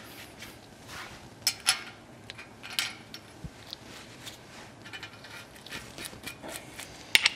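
Scattered light clicks, taps and scrapes of a grease-packed wheel bearing being handled and fitted into a front disc-brake rotor hub on its spindle, with a quick cluster of clicks near the end.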